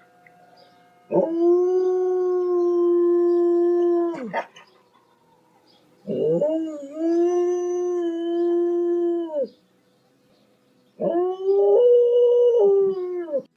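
Dog howling: three long, steady-pitched howls of about three seconds each, the last one stepping up in pitch partway through.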